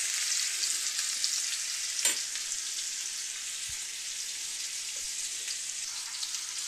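Ground beef and diced onions sizzling in a hot cast iron skillet: a steady high hiss with fine crackles. A single short click comes about two seconds in.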